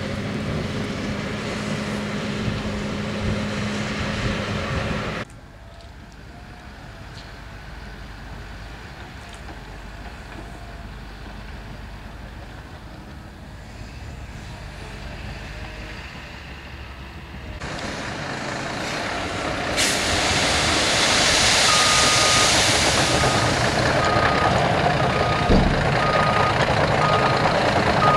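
Diesel earthmoving machinery running: a tipper truck and bulldozer, first as a steady drone and then, near the end, loud and close. A reversing alarm beeps about once a second from roughly two-thirds of the way in, and there is a single sharp knock shortly after.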